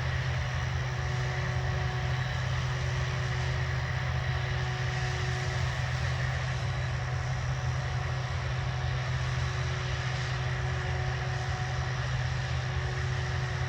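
Farm harvest machinery running steadily at constant speed: a low, even engine drone with a faint steady whine, as the machines keep working through the corn.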